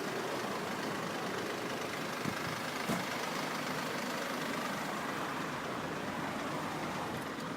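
Steady outdoor vehicle noise, like an engine running nearby and traffic, with a couple of faint knocks about two and three seconds in.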